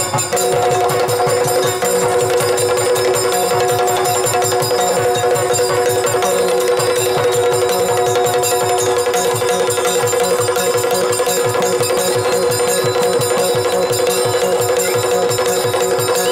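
Yakshagana drumming: a chende and a maddale beating fast, dense rhythms over a steady drone, accompanying a dance passage.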